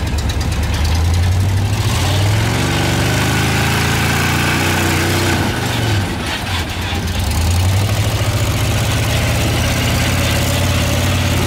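Rock-crawler buggy's engine revving under load as it climbs a steep rock ledge, its pitch rising over a few seconds. The engine drops off briefly about six seconds in, then picks up again.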